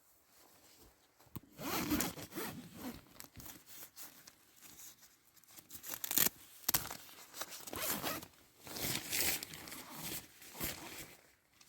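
A zip being drawn again and again in a series of quick, irregular pulls.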